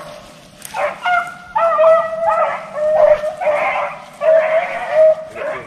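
Several beagles baying, long drawn-out bawls and shorter barks overlapping one another from about a second in: hounds in full cry on a rabbit's trail.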